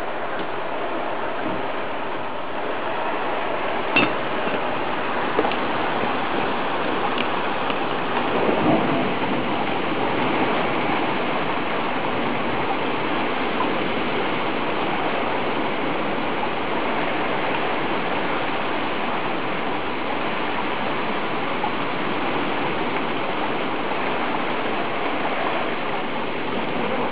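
Heavy rain pouring down in a steady hiss, with a single sharp click about four seconds in.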